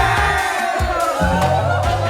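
Background music with a pulsing bass beat and a sung or synth melody line.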